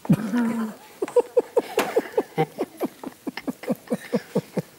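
A wooden spoon squeaking against a pan as it stirs and works thick mashed sweet potatoes: a quick run of short, falling squeaks, about five a second, starting about a second in.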